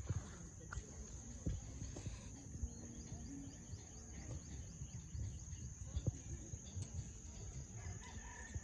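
Outdoor garden ambience: a steady, high-pitched drone of insects, with uneven low rumbling and soft bumps from wind and handling on the microphone.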